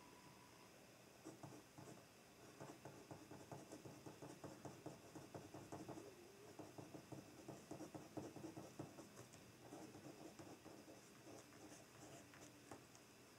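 Pen writing on a notebook page: faint, quick scratching and tapping strokes of the tip on paper, starting about a second in and easing off near the end.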